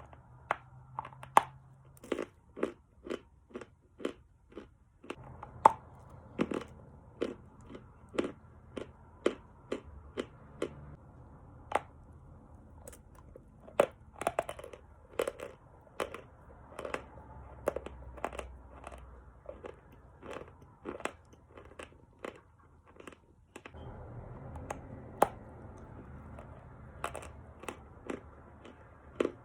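Pieces of Khrapovsky chalk being bitten and chewed, a steady run of sharp, crisp crunches at roughly two a second.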